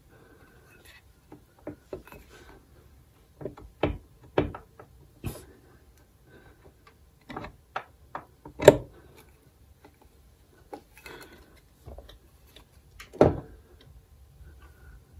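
Scattered metal clicks and knocks from a Yamaha R1 flywheel and starter-clutch gear being wiggled onto the crankshaft so the gear teeth line up with the starter drive. The two loudest knocks come a little past the middle and near the end.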